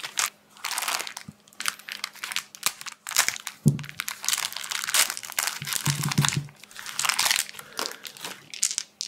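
Small clear plastic bags crinkling and rustling in irregular bursts as hands handle them and open one holding a set of dice.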